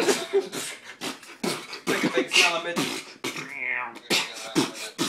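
Vocal beatboxing into cupped hands: a fast run of percussive mouth sounds mixed with short pitched vocal notes.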